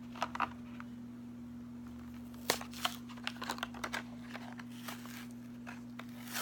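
Toy packaging being worked open by hand: scattered crinkles, clicks and small tearing sounds of cardboard and plastic, most of them bunched together from about two and a half to four seconds in, over a steady low hum.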